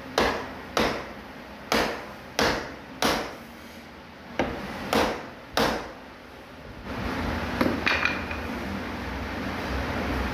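Wooden mallet knocking a wooden strip into place along a wooden bed side rail: about eight sharp, separate knocks at irregular spacing over the first six seconds. A few lighter wooden knocks follow about eight seconds in.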